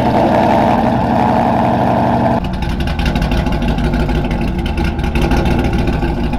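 Supercharged Coyote 5.0 V8 idling through its exhaust with the fuel pump unplugged, running on the fuel left in the lines so the system can be run dry. About two and a half seconds in, the sound turns deeper and more pulsing.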